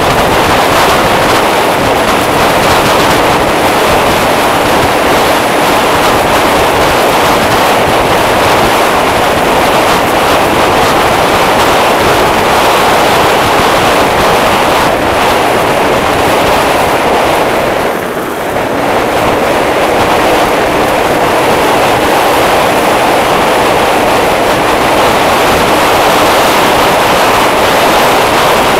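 A motor scooter riding along at speed: a steady rush of wind over the microphone with the engine running underneath. It goes briefly quieter about two-thirds of the way through.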